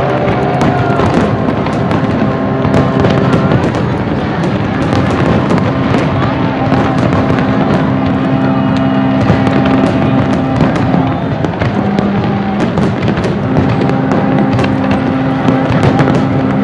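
Aerial fireworks display: a continuous barrage of shell bursts and crackling reports, with steady sustained low tones underneath.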